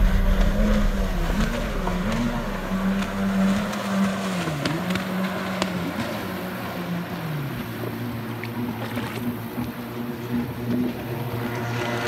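Jet ski engine running at speed across the water, its pitch rising and falling several times as the throttle changes.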